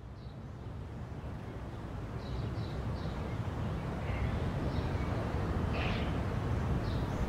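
Outdoor ambience fading in: a steady low background rumble with short bird chirps every so often.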